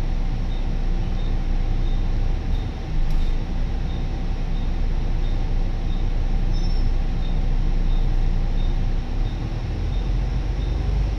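Interior noise of a Volvo B9TL double-decker bus on the move: the steady low rumble of its 9.4-litre six-cylinder diesel engine and road noise. A faint, high tick repeats evenly about twice a second.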